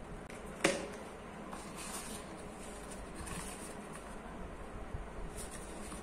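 Cardboard and paper phone packaging being handled: a sharp tap about half a second in, then light rustling and sliding as a card is drawn out of a paper sleeve.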